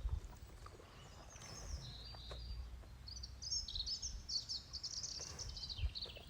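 A songbird singing a long, rapid, high twittering and warbling phrase, over a low steady rumble.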